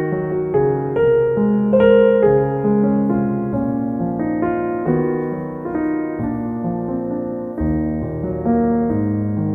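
Soft background piano music, slow notes and chords held and overlapping.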